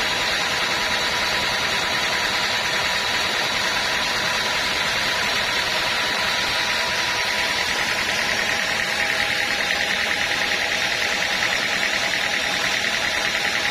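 Sawmill machinery running steadily: a constant mechanical drone with a faint whine, unchanging in level.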